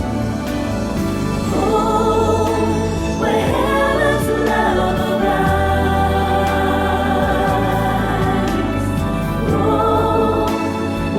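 Choir singing a Christian worship song over instrumental accompaniment, with long held notes.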